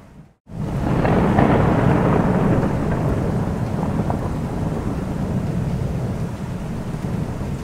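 Thunderstorm: rolling thunder over steady rain. A brief cut to silence right at the start, then the rumble swells about a second in and eases into a steady roar of rain and low thunder.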